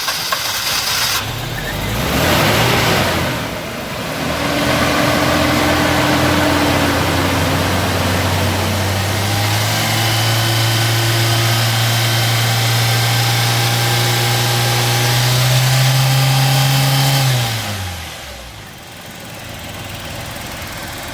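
Toyota Kijang Kapsul's 1.8-litre 7K-E four-cylinder petrol engine finishes a long crank, catches, and is held on the throttle at raised revs that creep slowly upward. Near the end it drops back to idle. The long crank and the revving are because leftover foam intake cleaner is being burnt off in the combustion chambers.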